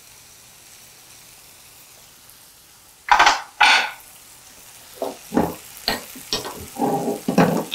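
Lemon pieces frying in a pan: a faint steady sizzle, then from about three seconds in a run of loud, irregular sizzling spurts and scrapes as a spoon stirs and turns them.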